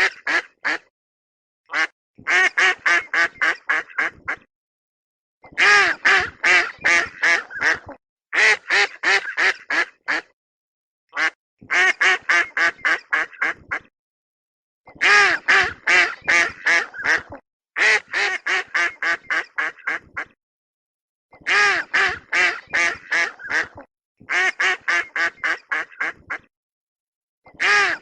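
Duck quacking in quick runs of about eight to ten harsh quacks, each run lasting two to three seconds. The runs repeat over and over with short silent gaps between them.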